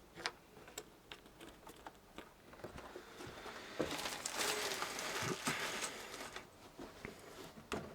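Light clicks and taps of plastic door-trim clips and the door card being handled, with a longer scraping rustle from about four seconds in.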